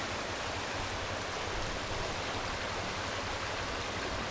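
Rushing water of a stream: a steady, even hiss of flowing water.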